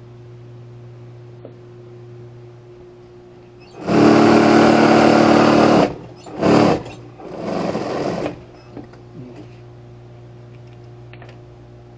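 Juki industrial high-speed sewing machine: its motor hums steadily while idling, then it stitches in a loud two-second run about four seconds in, followed by a short burst and a somewhat quieter second run. A few light clicks of handling near the end.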